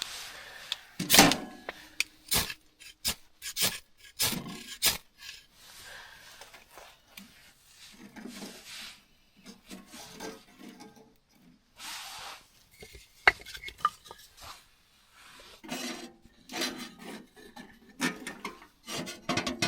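Irregular knocks, clicks and scraping sounds, as of things being handled and rubbed, at no steady rhythm.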